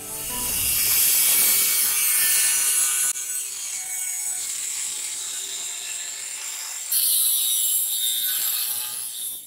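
Angle grinder with a cut-off disc cutting through the steel plate of an old circular saw blade, a steady high-pitched grinding. It eases slightly about three seconds in and gets louder again about seven seconds in.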